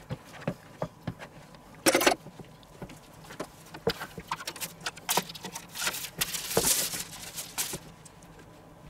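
Silicone spatula spreading and smoothing mashed potato in a glass baking dish: irregular soft taps and clicks, a louder knock about two seconds in, and a stretch of scraping from about six to seven and a half seconds.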